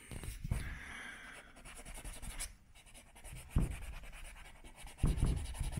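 Faint scratchy rubbing on painted wooden trim as crayon wax is worked into nail holes and wiped off with a cloth. Low bumps come about three and a half and five seconds in.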